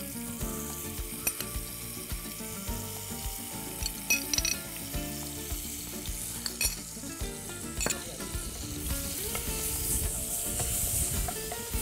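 Shrimp frying in hot oil in a pan, a steady sizzle broken by a few sharp taps. The sizzle grows louder and hissier about nine seconds in, as more shrimp go into the oil.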